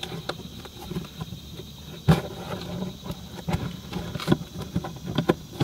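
Handling noise from unpacking a cardboard box of parts: scattered knocks and rustling over a low hum, with a sharp knock about two seconds in and a few more near the end.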